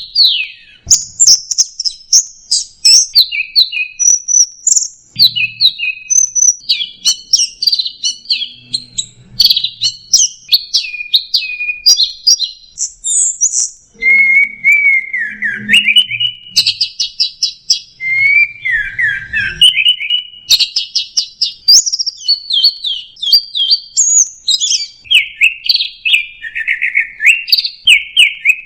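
Orange-headed thrush (anis merah) singing a long, nearly unbroken song of quick, varied twittering phrases and whistled slurs, in the style Indonesian bird keepers call 'teler'.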